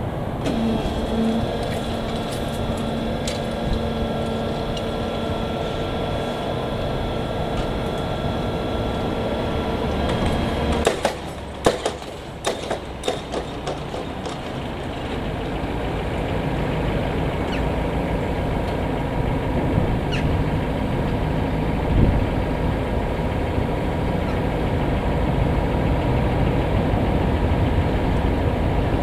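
Diesel-hydraulic engine of a DB V90 shunting locomotive running, with a steady hum that grows louder as the locomotive draws closer. A short cluster of sharp clanks comes about a third of the way through.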